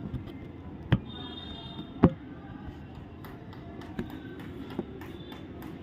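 Handling knocks: two sharp knocks about a second apart, the second the loudest, then a few fainter ticks, over a steady outdoor background noise.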